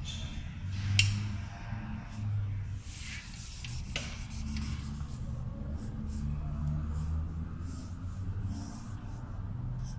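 Felt-tip marker rubbing and squeaking across paper in short shading strokes, over a low background murmur, with a sharp click about a second in.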